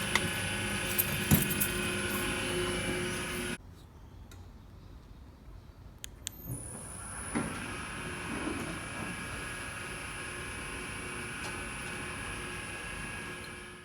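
Motorised apartment garage door running steadily, cutting off abruptly about three and a half seconds in; after a few sharp clicks it starts again with a knock and runs steadily to the end.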